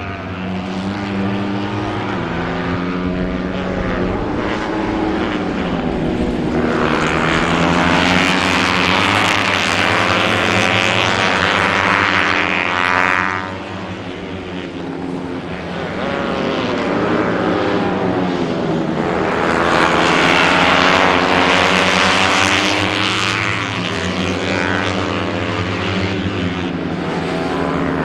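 Several racing motorcycle engines at high revs going through a corner, their pitch rising and falling with the throttle and gear changes. The sound swells twice as groups of bikes pass, about a quarter of the way in and again about two thirds through.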